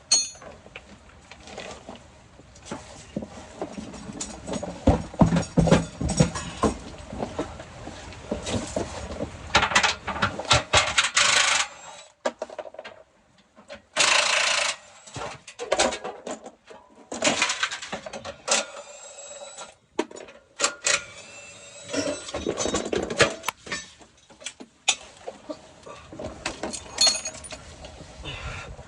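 Metal hand tools and parts clinking and knocking irregularly during work on a truck's 4L60E transmission, with some strikes briefly ringing.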